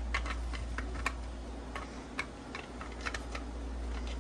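Irregular light clicks and taps of small hard parts being handled and pushed into a 3D-printed plastic parts box, over a steady low hum.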